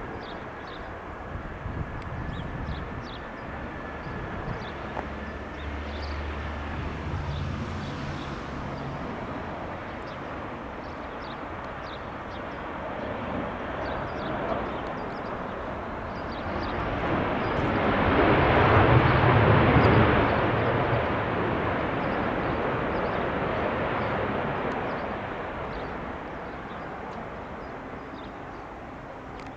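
Airbus A319 jet engines passing by: a rushing jet roar that builds slowly to its loudest about two-thirds of the way through, then fades away, with a faint high whine in the first part.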